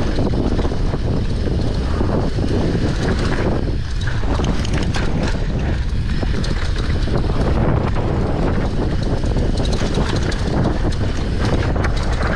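Heavy wind buffeting the microphone of a camera carried along a trail at speed, with scattered clicks and rattles from the rough ride.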